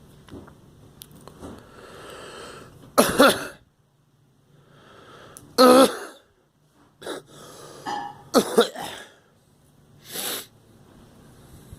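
A girl coughing in a run of harsh coughs, some in quick pairs, a second or two apart, with breathing heard between them.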